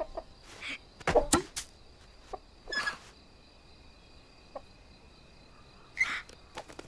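Sparse cartoon sound effects for the animated bat and hens: short clicks, taps and brief rustling swishes, with a louder pair of knocks about a second in, over a faint steady high tone.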